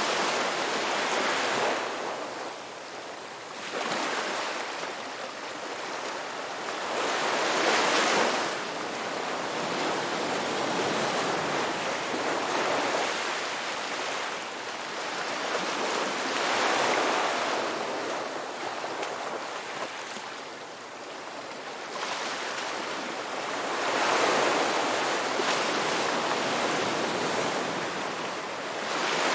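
Ocean waves breaking and washing up on a beach, the surf swelling and ebbing every few seconds; the loudest wave comes about eight seconds in.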